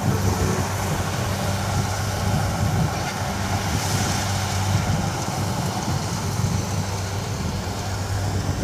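Kubota DC60 combine harvester's diesel engine running steadily under load while it cuts rice, a constant-pitched drone with the machine's working noise over it.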